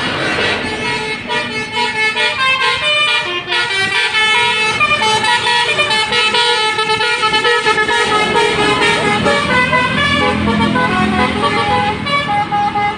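A bus's basuri telolet horn playing a melody, its notes stepping up and down one after another without a break.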